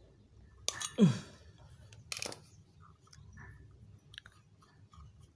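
Metal clicks and knocks as a Daihatsu Zebra carburetor is worked on with a screwdriver while its cover screws are undone. About a second in comes one short squeak falling in pitch, the loudest sound, and a sharp knock follows about two seconds in.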